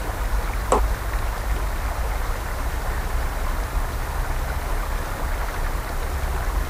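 Steady rushing of a small open creek, heard through a cheap action camera's built-in microphone, with a heavy low rumble of wind buffeting the microphone. There is a brief click under a second in.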